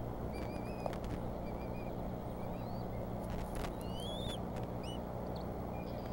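Bald eagle eaglets peeping while being fed: a scatter of short, high, thin peeps, some rising in pitch, over a steady low hum.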